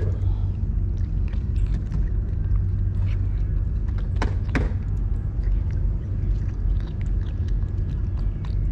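A cat chewing wet cat food chunks close by, many small wet clicks and smacks with two sharper ones a little past the middle, over a steady low rumble.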